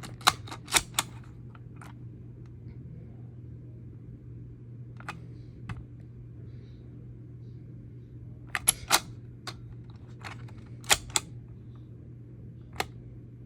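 Sharp plastic clicks and taps from a smoke alarm being handled: a quick run of clicks right at the start, then scattered single and paired clicks through the rest, over a steady low hum. The alarm does not sound.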